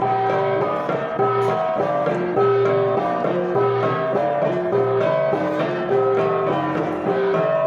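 Instrumental music: a melody of held notes moving over a repeating bass line.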